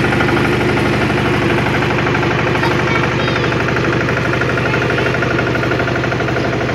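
Old farm tractor engine running steadily with an even, rapid chug.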